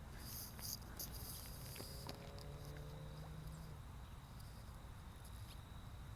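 Faint outdoor insect chirping, crickets or similar, over a steady high buzz, with a few light clicks and a brief low hum about two and a half seconds in.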